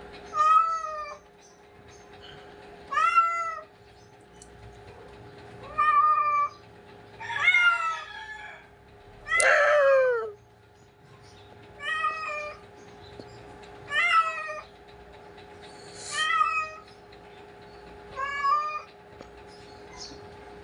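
Calico cat meowing again and again, about nine calls spaced roughly two seconds apart; the call around the middle is the loudest and longest, sliding down in pitch at its end.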